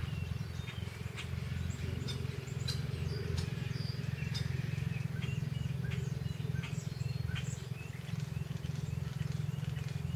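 Outdoor ambience: a steady low hum throughout, with short, scattered high chirps and ticks.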